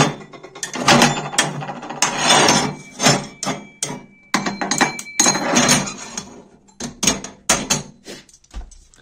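Cast-iron cooktop rings of a wood stove being set back over the firebox with a lid-lifter hook: an irregular run of metal clanks, clinks and scrapes.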